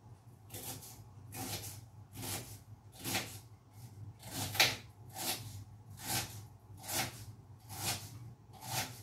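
Knife chopping on a green plastic cutting board: a steady series of about eleven evenly paced strokes, a little more than one a second.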